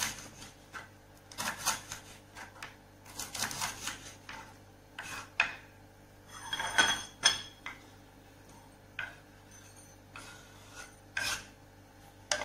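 Kitchen knife slicing red chilies on a wooden cutting board: a run of short cutting strokes for about five seconds, then a longer scrape with a faint ringing about halfway through, and a few isolated knocks later.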